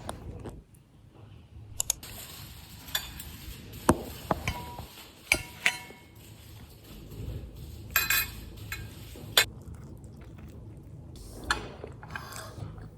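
Small hard objects clinking and clattering as they are handled: scattered sharp knocks and clinks, a few ringing briefly.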